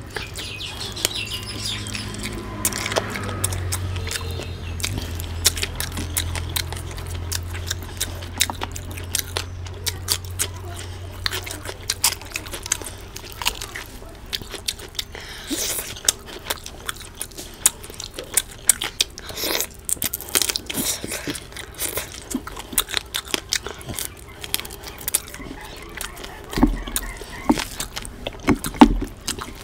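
Close-miked sounds of a person eating chicken curry and rice by hand: wet chewing, lip smacks and many sharp mouth clicks, with biting into chicken on the bone and the squish of curry-soaked rice worked between the fingers. A low drone sits under the first dozen seconds and then fades.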